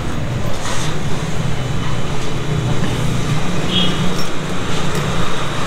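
Steady low rumble of vehicle engines running, with one brief high chirp about two-thirds of the way through.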